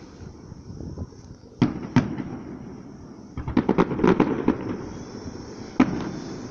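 Aerial fireworks bursting. There are two sharp bangs about two seconds in, a rapid run of crackling reports around the middle, and one more bang near the end.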